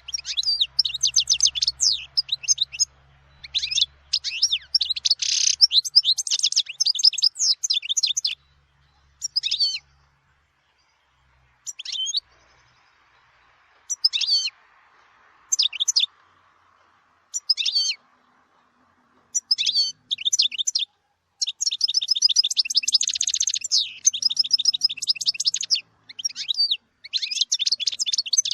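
European goldfinch singing: fast, twittering, trilled phrases in long runs, broken in the middle by a stretch of single short notes and pauses before the full song returns.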